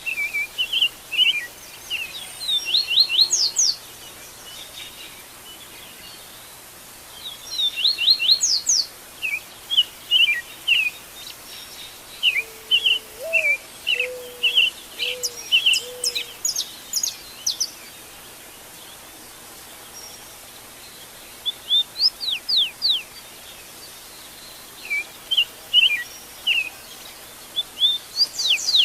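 Wild birds singing in a dawn chorus: bouts of short, high chirps and quick sweeping notes that come and go, with short lulls between them. A few low, soft notes sound around the middle.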